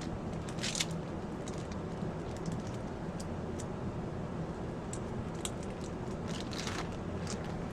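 Steady low background hum with scattered small clicks and a couple of short rustles, about a second in and again near the end.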